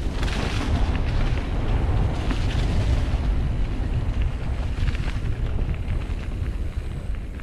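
Wind buffeting an action camera's microphone during a mountain-bike ride, heard as a heavy, steady rumble with a rushing noise that swells and fades.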